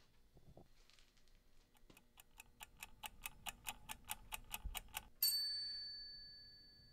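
Timer ticking at about five ticks a second, growing louder, then a single bright ding about five seconds in that rings on and fades away, like a wind-up kitchen timer going off.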